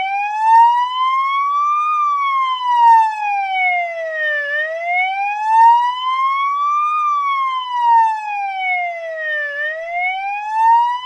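Police car siren in its wail, the pitch rising and falling smoothly and slowly, about two and a half seconds up and two and a half down, over and over.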